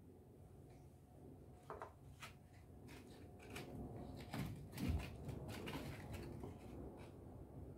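Kitchen handling noise during bread-making: scattered taps, clicks and knocks of objects being moved and set down, with a heavier thump about five seconds in.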